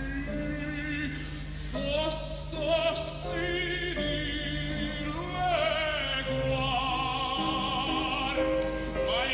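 Operatic tenor singing an aria in full voice with a wide vibrato, holding long notes, over piano accompaniment.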